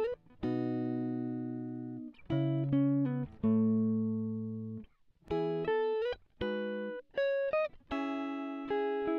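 Background music: slow chords that start sharply and ring out, fading, in short phrases with brief gaps between them.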